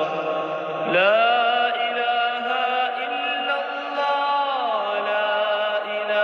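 Chanted vocal music with long held notes: the pitch slides up about a second in, holds, then slides down again near five seconds.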